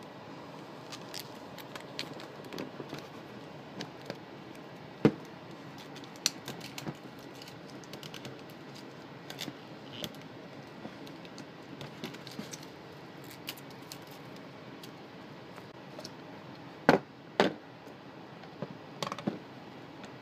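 Hands handling an iPhone 5C's retail box and its plastic packaging: scattered light taps, clicks and scrapes of cardboard and plastic, with a sharper knock about a quarter of the way in and two more close together near the end.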